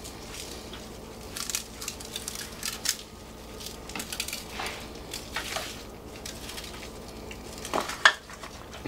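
Gloved hand rubbing dry seasoning into raw chicken thighs in a disposable aluminium foil pan: irregular rustles, squelches and crinkles of the foil and meat, with a sharper knock of the pan about eight seconds in.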